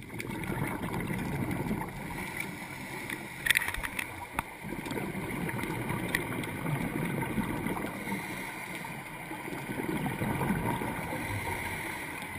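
Underwater ambience heard through a dive camera: a steady muffled rumble and gurgling, with divers' exhaust bubbles rising. A few sharp clicks stand out about three and a half and four and a half seconds in.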